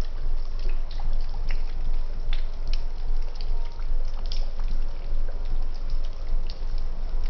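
Water running and splashing, with many small irregular drips and splashes over a steady low rumble.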